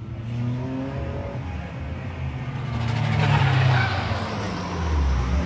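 Racing car engines running hard on a circuit, rising and falling in pitch as the cars accelerate and ease off. The sound builds to its loudest about three to four seconds in as a car passes closest.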